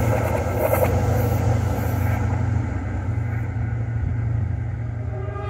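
Diesel train rumbling down the track as it moves away, its steady low engine drone and wheel noise gradually fading, the higher rail noise dying out about two seconds in.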